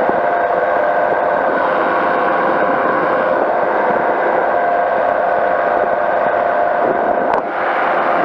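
Powered parachute's engine and propeller running steadily in flight, a loud, even drone with a few held tones through it. The drone dips briefly near the end.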